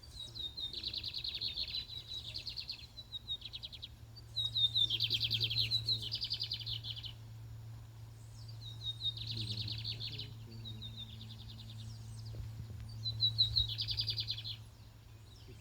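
Lined seedeater (bigodinho) singing four bursts of song, each a few clear chirps running into a fast rattling trill. A steady low hum sits underneath.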